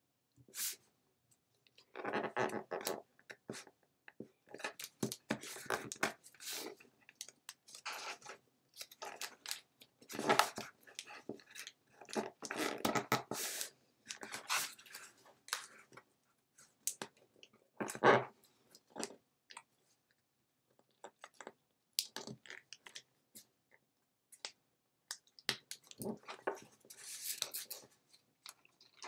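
Origami paper rustling and crinkling in irregular bursts with short pauses, as it is folded by hand and its creases pressed.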